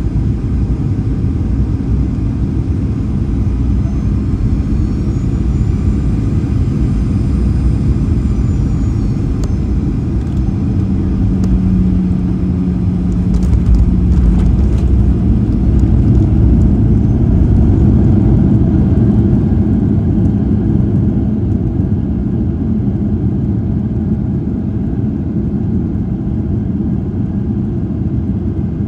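Boeing 737-800 landing, heard from a cabin window seat over the wing: a steady deep rumble of its CFM56-7B engines and rushing air on short final. A few knocks at touchdown come about 13 seconds in. The roar then grows louder for several seconds as reverse thrust and braking slow the jet, and eases off near the end.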